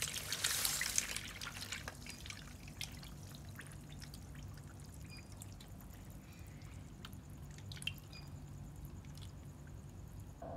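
Fish in a water-filled bucket snapping at feed at the surface: a short spattering rush in the first second or so, then scattered small drips and plops.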